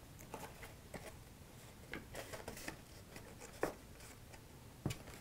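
Faint rustling and light taps of cardstock being handled and pressed together as a glued paper seam is closed, with a couple of sharper ticks in the second half.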